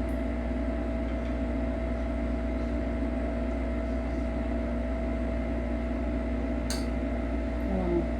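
Steady mechanical hum of a running kitchen appliance or fan, with several held tones over a low drone. A single light clink sounds about seven seconds in.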